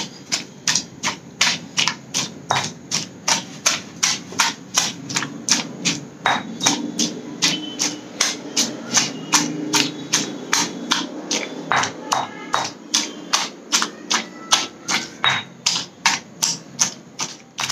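Stone pestle pounding cooked radish leaves and fried red chillies in a stone mortar: steady, even strikes of stone on stone through wet greens, about three a second.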